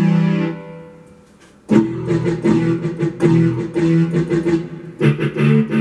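Yamaha YPG-235 keyboard playing its distorted guitar voice: one chord struck and left to fade, then, a little under two seconds in, a run of short, choppy chords in a steady rhythm.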